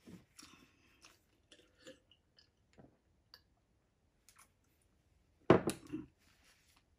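Faint small clicks and mouth sounds from a person at the table, then one short, sudden, much louder sound about five and a half seconds in.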